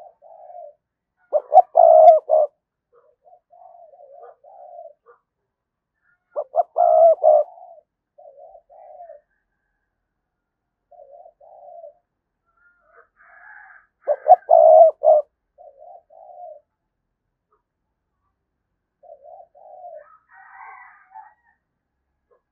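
Spotted dove cooing: three loud phrases about five to seven seconds apart, each opening with a quick stutter, with softer coos between them. This is the bow-coo ('gù') of a decoy dove used to call in wild doves.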